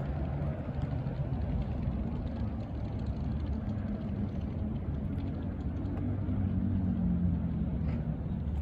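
A vehicle engine running: a steady low rumble with a faint hum that drifts slowly in pitch.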